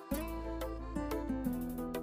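Instrumental background music with plucked, guitar-like notes.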